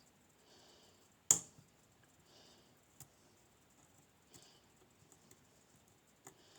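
Small clicks and taps of lock picks working inside a Nemef NF2 lock while it is being picked. There is one sharp click about a second in, then a few fainter clicks spaced a second or two apart.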